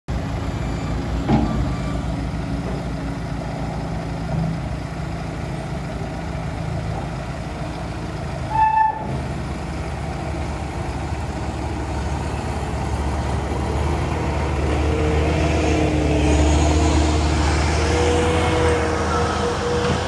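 Terex TLB840 loader backhoe's diesel engine running, with a short beep about halfway through. It grows louder in the last few seconds as the engine is revved, and a steady whine joins it while the loader and backhoe arms move.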